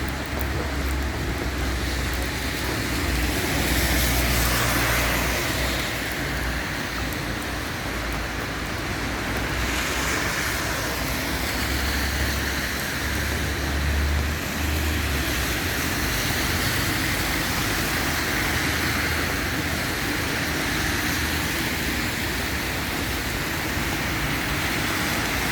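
Street traffic on rain-wet roads: cars passing with tyres hissing on the wet surface, a steady wash of noise that swells as vehicles go by, with low rumbling now and then.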